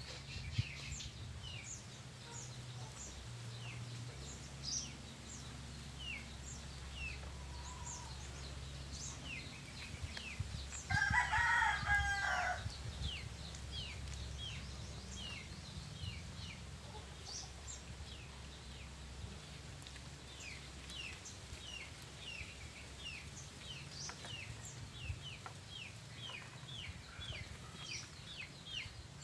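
A rooster crows once, a call of about two seconds a little before the middle, the loudest sound here. Small birds chirp repeatedly in short falling notes throughout, over a low steady hum.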